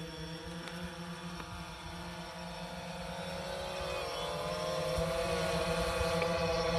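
Quadcopter drone's propellers hovering just after take-off: a steady buzzing hum that dips briefly in pitch about four seconds in and grows slightly louder toward the end.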